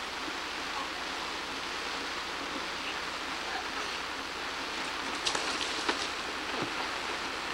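Steady hiss of a lawn sprinkler spraying water over a backyard water slide, with a few faint slaps about five seconds in.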